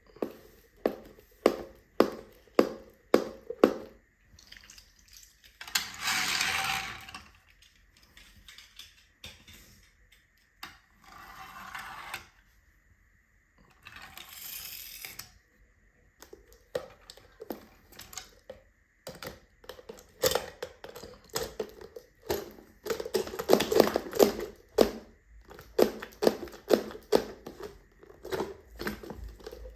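Small toy cars clicking and clattering as they are handled and knocked together, in quick runs of sharp knocks, with a few short noisy scrapes between them.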